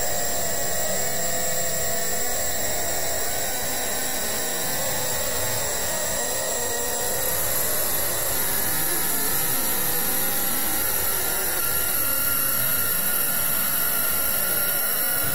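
A steady, even rushing noise with a few faint held tones.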